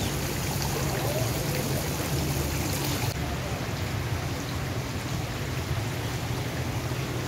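Steady splashing and trickling of garden fountain spouts running into a koi pond. The sound turns duller about three seconds in.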